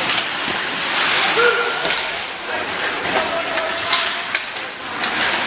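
Ice hockey game ambience in a rink: a steady hiss of skates on the ice, several sharp clacks of sticks and puck, and a few brief shouts.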